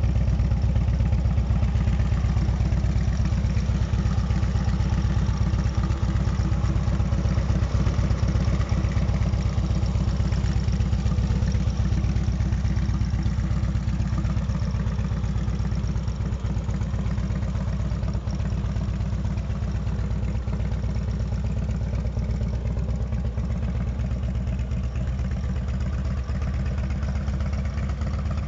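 Harley-Davidson Electra Glide Ultra Classic's air-cooled V-twin engine idling steadily, with a rapid, even beat of firing pulses. It is a little quieter in the second half.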